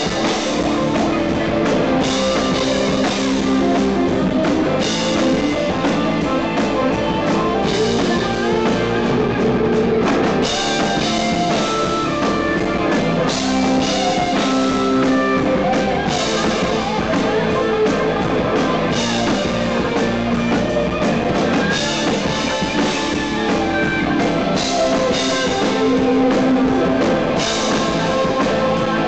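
Live rock band playing, a Stratocaster-style electric guitar taking the lead with sustained, sliding notes over the drums and bass.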